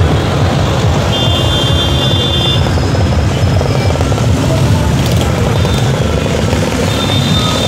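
Heavy road traffic close by: trucks and motorcycles passing with a loud, steady low rumble. A high steady tone sounds briefly about a second in and again near the end.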